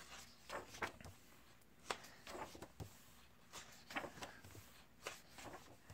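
Faint paper rustles and soft handling sounds as the pages of a large printed rule book are turned, in a scatter of short, separate strokes.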